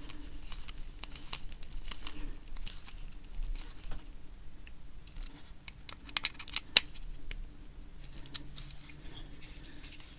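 Small stainless cap screws being driven with a hex-bit screwdriver into a 3D-printed plastic case: scattered scratchy clicks and rubbing of the bit and the handled case, with one sharp click about two-thirds of the way through.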